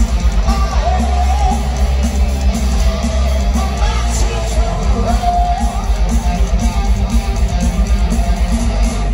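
Live heavy metal band playing loud through a festival PA, heard from within the crowd: distorted electric guitars and bass over dense drumming, with a lead guitar melody sliding on top.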